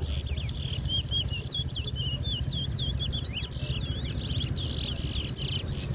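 A towa-towa seed finch sings a continuous warbling run of quick, high chirps, the song that is tallied in a bird-song race. A steady low rumble runs underneath.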